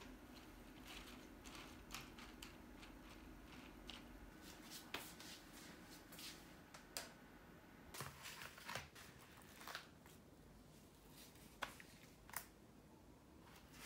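Near silence broken by scattered faint clicks, taps and light rustles of hands handling things on a kitchen counter, among them a plastic meat tray near the end.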